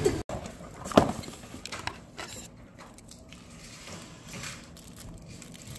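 Handling noises at a counter: one sharp knock about a second in, then a few softer clicks and rustles as small items and a cardboard box are handled.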